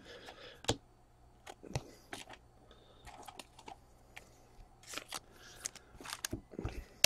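Trading cards being handled and sorted: scattered faint clicks, taps and short slides of card stock and plastic card holders.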